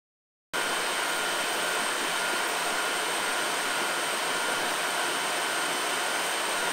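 A steady whirring hiss with a few thin, constant high whines over it, cutting in abruptly about half a second in after digital silence.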